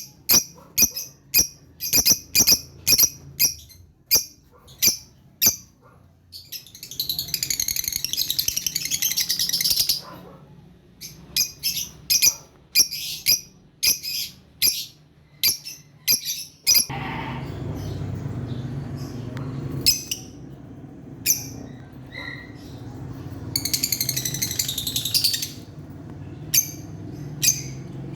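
Lovebirds calling: a run of sharp, high chirps, two or three a second, broken by longer spells of busy chattering. A low steady rumble joins in about two-thirds of the way through.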